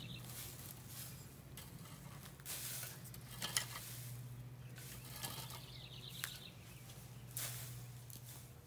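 Garden rake and hoe scraping and dragging through loose soil and mulch, in several separate strokes a second or so apart, over a steady low hum.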